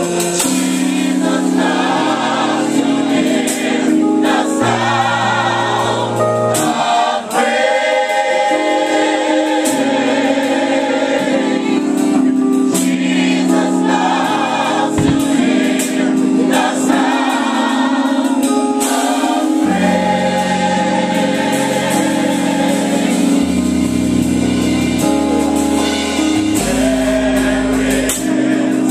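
Gospel choir singing with band accompaniment: massed voices over sustained chords, a moving bass line and percussion.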